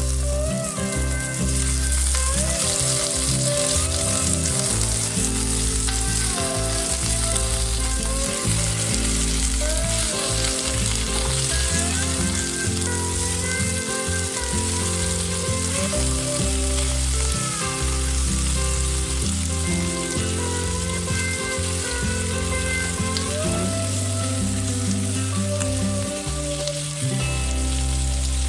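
Chicken pieces frying skin-side down in hot oil with ginger and garlic, sizzling steadily as they brown.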